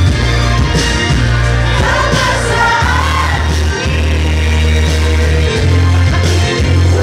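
Karaoke pop song playing loudly with a strong steady bass line, a man singing into a microphone and a group of friends singing along.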